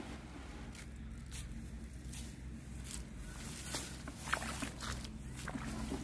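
Dry rice straw crackling and rustling in irregular short crackles, under foot and under handfuls of oat seed broadcast onto it.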